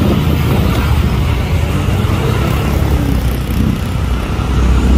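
Concrete mixer truck's diesel engine running as it drives through busy street traffic, a steady, heavy low sound with traffic noise over it.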